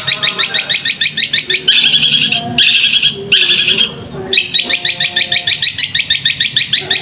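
Long-tailed shrike (cendet) singing a loud, rapid chatter of sharp notes, about seven a second. The chatter is broken by harsh rasping bursts about two and three seconds in and a short pause near four seconds, then picks up again.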